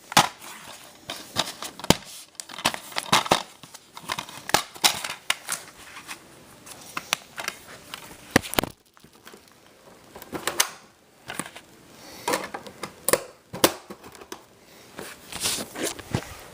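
Plastic shrink-wrap being torn and crinkled off a DVD case, with many sharp, irregular clicks and crackles of handled plastic.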